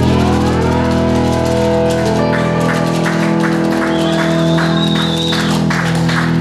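A live blues band plays on electrified homemade box guitars, an oil-can guitar and a cigar-box guitar, holding a chord over drums. A guitar note slides up at the start. From about two seconds in, a steady light percussion beat runs at about four hits a second.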